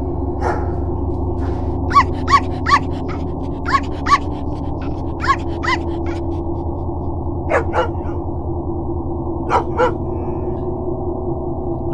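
A dog barking, short barks mostly in quick pairs, several times over a steady low hum.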